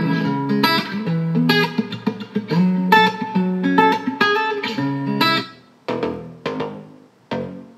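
Plucked guitar music playing through a Divoom Ditoo pixel-art Bluetooth speaker. A little before six seconds in, the music breaks off and the speaker skips to a different track of sharp, separate notes.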